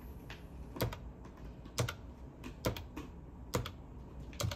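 Keys of a desktop calculator being pressed one by one: five sharp plastic clicks about a second apart, with fainter taps between them.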